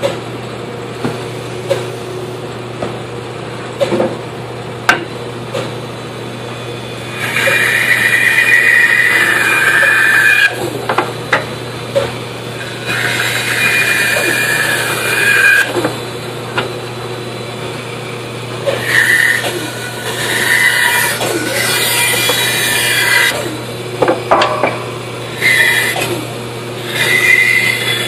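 Band saw running with a steady hum, then its blade cutting into a thick wooden block in several louder bursts of a few seconds each, the first after several seconds of the saw running free.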